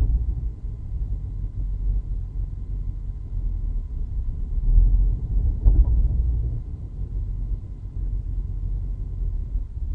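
Low rumble of a 2016 Chevrolet SS with six-speed manual driving, heard inside the cabin. It swells about halfway through, with a sharp thump near the peak. This is the bouncing-thumping drive-train noise the owner is documenting as a fault.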